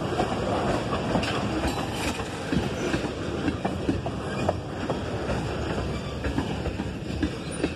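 Loaded tank cars of a freight train rolling past, a steady rail rumble with wheels clicking over the rail joints. The last car goes by about halfway through, and the rumble eases a little after that as the train moves away.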